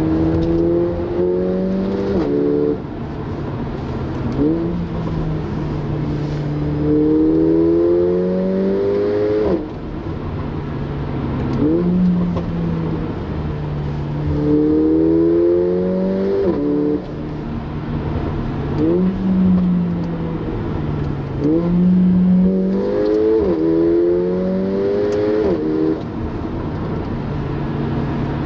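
Mercedes-AMG CLA 45 Shooting Brake's turbocharged 2.0-litre four-cylinder accelerating hard through the gears, heard from inside the cabin. Four times the pitch climbs and drops back at each quick upshift, with short sharp revs in between.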